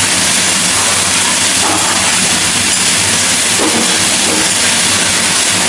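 Hot teppanyaki griddle sizzling, a loud, steady hiss as clouds of steam rise off the plate.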